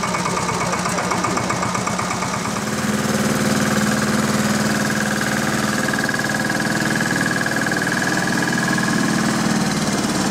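Two-wheel walking tractor's engine running steadily as it pulls a loaded trailer, growing louder about two and a half seconds in.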